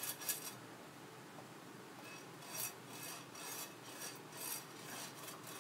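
A basting brush rubbing vegetable oil across the ridged plate of an electric grill. It makes a run of short, scratchy back-and-forth strokes, about three a second in the second half.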